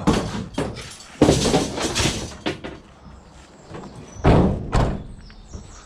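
Scrap metal being handled and loaded into a van: knocks and a clattering scrape, then two heavy slams about four seconds in.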